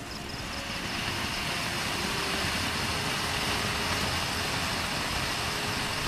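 Ground fountain firework ('flower pot') spraying sparks with a steady, loud hiss that builds up over the first second as the fountain reaches full height.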